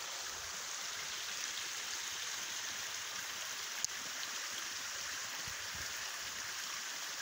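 Creek water running high after heavy rain, rushing steadily over a rock ledge in a small cascade. A single sharp click about four seconds in.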